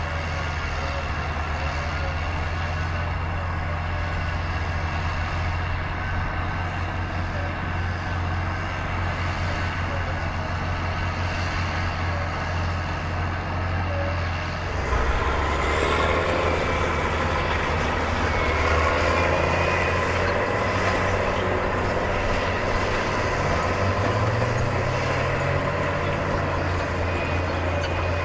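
Heavy construction machinery engines running steadily. About halfway through they get louder and busier, and an engine note rises briefly later on.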